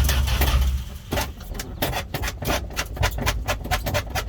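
Dodge D100 pickup's engine being cranked by the starter on a jumper pack without catching. It is louder and denser for about the first second, then turns over in an even chug of about four to five beats a second. The owner thinks fuel is not yet reaching the carburettor.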